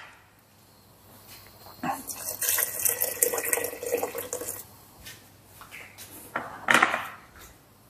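Water poured from an electric kettle into an aluminium pressure cooker of chopped vegetables, splashing and filling for about three seconds. A short clatter near the end.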